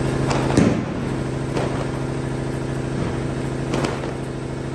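An engine idling steadily, with a sharp crack about half a second in and a couple of fainter cracks later: firecrackers going off in the street.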